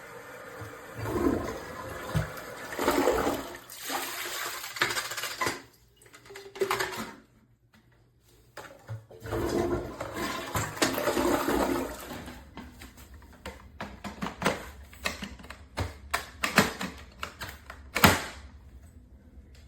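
Water pouring and splashing in uneven spells, with a pause of about two seconds partway through, and a few sharp knocks near the end.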